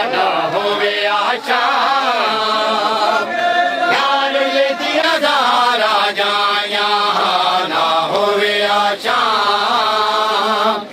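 A group of men chanting a noha, a Shia mourning lament, in unison.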